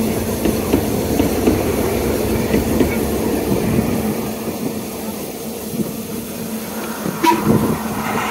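Narrow-gauge railway coaches rolling past over the rail joints: a steady rumble with clickety-clack that eases slightly as the last coach draws away. A short, sharp high sound comes about seven seconds in.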